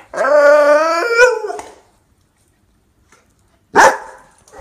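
Bernese mountain dog puppy giving one long, wavering, howl-like call lasting about a second and a half, then, after a pause, a single short, sharp bark near the end.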